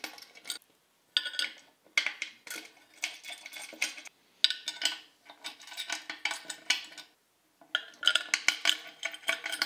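Steel bolts clinking and rattling against a metal antenna mounting plate as they are put in and turned finger tight. The light metallic clinks come in about seven short clusters, with a slight ring after them.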